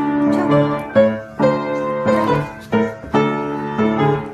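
A piano being played: a slow run of struck notes and chords, a new one every half second to a second, each left ringing.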